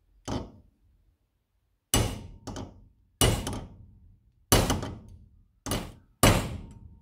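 Hammer blows on a steel drift, driving a small steel pinion gear down onto its shaft in a cast-iron hand-grinder housing. One light tap, then six sharp strikes about a second apart, each with a short metallic ring.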